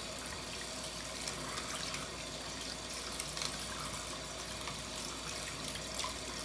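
Tap water running steadily into a sink while a spoon is rinsed under it, with a few small clinks; the flow is shut off abruptly near the end.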